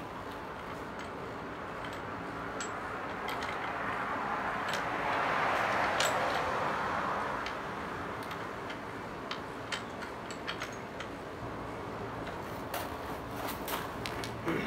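Small irregular metal clicks and taps as a Brooks Cambium C17 saddle's steel rails are pressed into a bicycle's seatpost clamp, more of them in the second half. A broad rush of noise swells and fades about four to eight seconds in.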